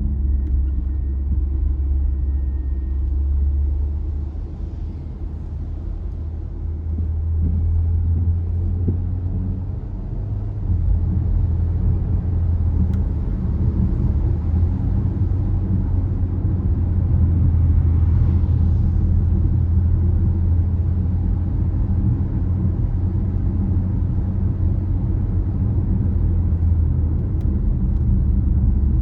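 Car driving on a wet road: a steady low rumble of road and engine noise, easing off for a few seconds and then building again.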